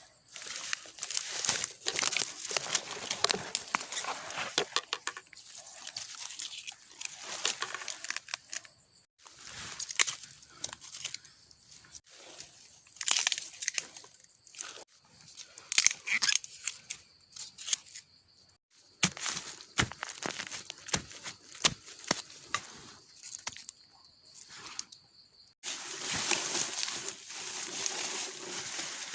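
Dry leaves and brush crackling and rustling in irregular bursts, with short quieter pauses between them.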